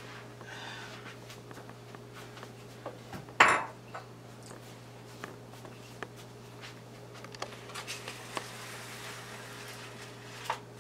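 Kitchenware being moved around on a countertop: scattered light clinks and taps, with one loud clatter of dishes about three and a half seconds in.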